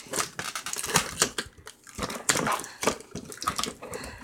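Clear packing tape and cardboard crinkling and crackling in irregular bursts as fingers pick at the taped twist-tie fasteners of a cardboard box.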